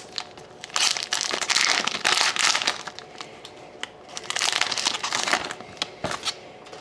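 Foil wrapper of a trading-card pack crinkling as it is torn open and the cards are pulled out, in two spells of crackling, about a second in and again past four seconds.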